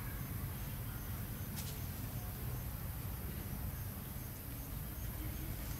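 Insects chirring steadily and high-pitched, over a low rumble, with one faint click about a second and a half in.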